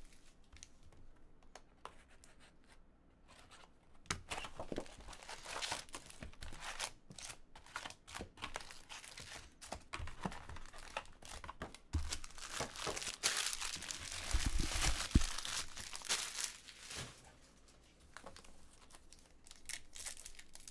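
A cardboard hobby box of 2015-16 Upper Deck Series One hockey cards being opened and its foil packs handled and torn open: irregular crinkling, scraping and tearing of wrappers, densest in the middle, with a couple of dull knocks on the table.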